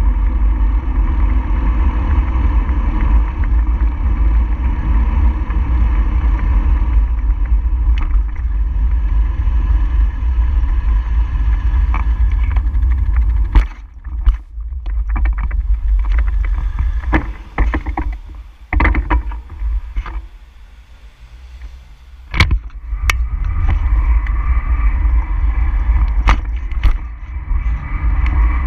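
Wind rumbling on the microphone, with road noise, while a bicycle rides along. Partway through it eases into a quieter, uneven stretch broken by a few sharp clicks or knocks, then picks up again.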